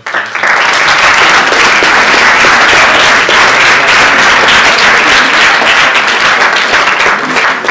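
Audience of students applauding, with dense clapping that starts suddenly and holds steady.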